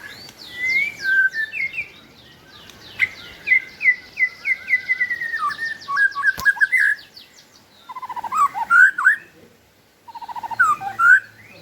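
White-rumped shama (murai batu) singing the song keepers call 'balak 8': a varied string of clear whistles, then a long run of quickly repeated notes. Near the end come two bursts of fast buzzy rattling notes, with a short pause between them.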